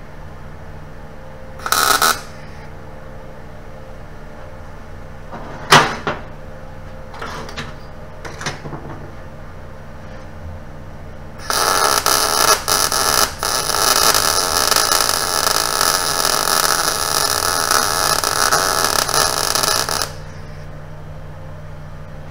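MIG welder arc crackling steadily for about eight seconds as a bead is run on dirty steel pipe, giving a very consistent puddle. Before it come a brief burst about two seconds in and a sharp knock near six seconds, over a steady low hum.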